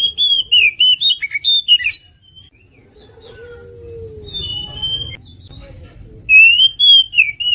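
Oriental magpie-robin singing: loud, rich whistled phrases with quick jumps in pitch, in a burst at the start and another from about six seconds in, with quieter, scattered notes between them.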